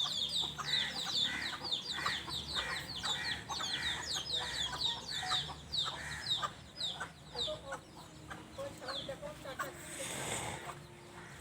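Hen with chicks: rapid high peeping over repeated lower clucks. The peeping thins out after about seven seconds, and a short rustle comes near the end.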